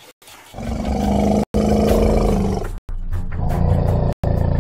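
Loud, deep animal roaring that starts about half a second in and comes in stretches of a second or so, broken three times by abrupt dead-silent gaps.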